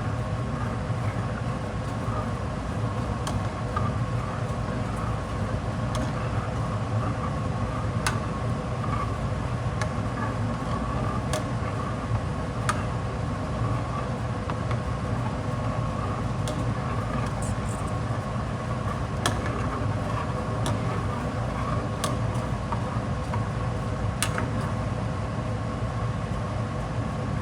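Steady mechanical hum with a few faint ticks scattered through it, while a stovetop pot of Hamburger Helper heats toward the boil.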